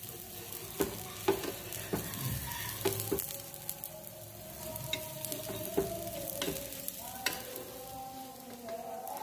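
Dosa sizzling on a hot tawa (flat griddle) while a metal spatula scrapes and taps against the pan, loosening and folding the dosa, with several sharp clicks of metal on pan.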